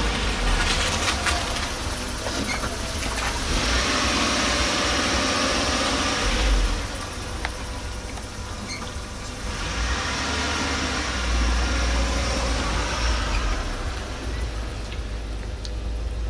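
Road traffic on a street: vehicles passing over a steady low rumble, with two swells of tyre noise, one about four seconds in and one about ten seconds in.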